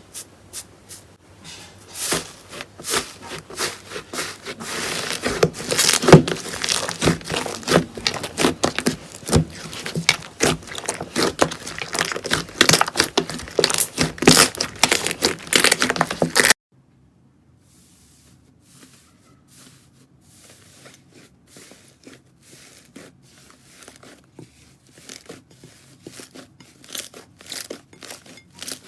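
Slime being squeezed and stretched, with dense crackling and popping. The sound cuts off abruptly about 16 seconds in, and a quieter crackling follows.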